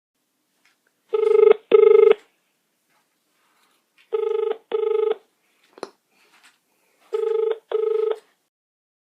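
Panasonic cordless phone ringing in a double-ring cadence, ring-ring, three times about three seconds apart, each ring an electronic tone. A faint click falls between the second and third pairs.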